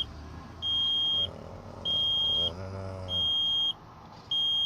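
Truck's dash warning buzzer beeping over and over: a steady high beep about two-thirds of a second long, repeating a little less than once a second.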